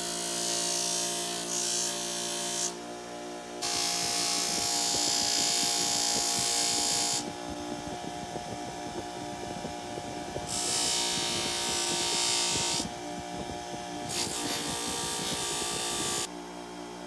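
Bench grinder running with a buffing wheel while a small brass key is pressed against it in four spells. Each spell adds a loud rushing hiss over the motor's steady hum. Near the end the hiss stops and the motor runs on alone.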